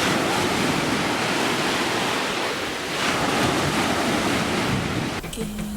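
Sea waves washing in, swelling twice, with wind buffeting the microphone. Music with steady notes cuts in near the end.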